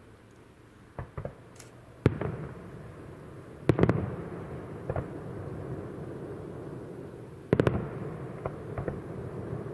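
Aerial firework shells bursting in a series of sharp bangs, each big one trailing off in a rolling rumble. Two lighter reports come about a second in, heavy bangs follow at about two, four and just before eight seconds, and smaller pops fall in between.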